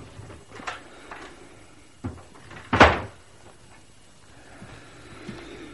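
A door being opened or closed, a radio-drama sound effect: a sharp click about two seconds in, then a louder short knock of the door a moment later, with a few faint small clicks before.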